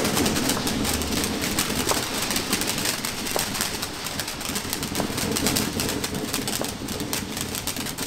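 Firework fountains fizzing and crackling on the ground: a dense, steady stream of rapid small pops, with a few sharper cracks scattered through it.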